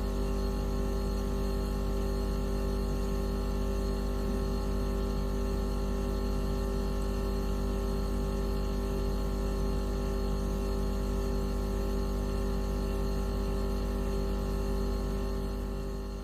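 Steady electronic drone made of many held tones at once, heaviest in a deep hum, played as an anti-mosquito repellent sound. It holds unchanged and begins to fade out near the end.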